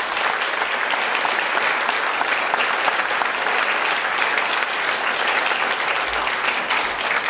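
Audience applauding: many people clapping steadily at the end of a choir's song.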